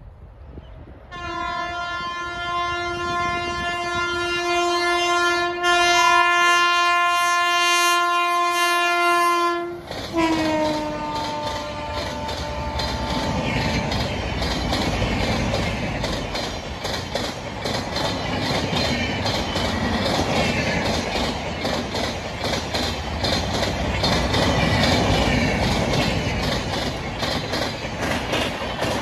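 WAP7 electric locomotive's horn sounding one long blast of about nine seconds, ending in a short falling note, as the express approaches. Its passenger coaches then run past with a steady clickety-clack of wheels over the rail joints.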